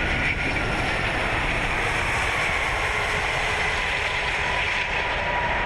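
Steady roar of air and runway rumble heard inside the cockpit of a Lufthansa Airbus A380 just after touchdown, as the airliner rolls out on the runway.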